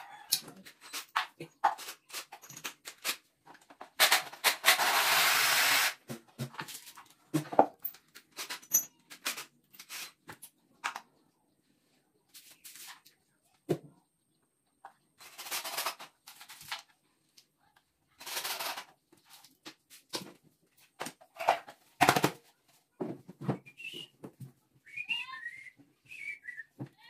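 Cordless drill running on wooden cabinet-door boards in three bursts, the longest about two seconds, while concealed-hinge holes and screws are worked. Between the bursts come scattered clicks and knocks as the boards and tools are handled.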